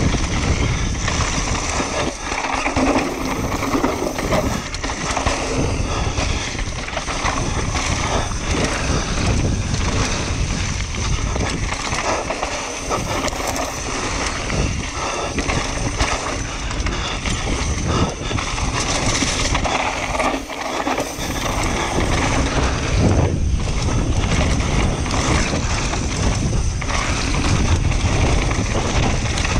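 Downhill mountain bike ridden fast down a dirt trail, heard through an action camera's microphone: steady wind rush and tyre noise on dirt, with the bike rattling and knocking continuously over the bumps.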